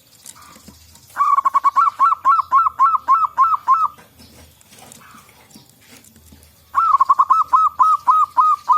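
Zebra dove (perkutut) calling: two quick runs of rapid, evenly spaced cooing notes, about five a second, the first a little over a second in and the second near the end.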